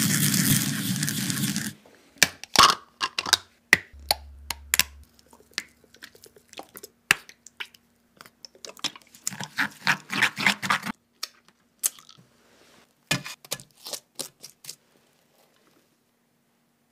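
Sesame seeds ground with a wooden pestle in a ceramic suribachi, a dense gritty scraping that stops about two seconds in. Scattered light clicks and taps follow, then about nine seconds in another two-second stretch of scraping in the bowl, and a few more taps before it goes nearly quiet.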